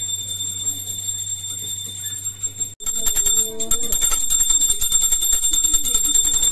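Small brass puja hand bell rung rapidly and continuously during the aarti, a steady high ringing made of many quick strikes, with an abrupt cut about three seconds in.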